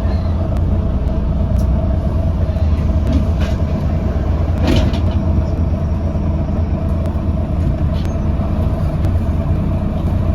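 Interior of a Volvo B9TL double-decker bus on the move: steady engine and road rumble with a constant whine running above it. A brief rattle comes about halfway through.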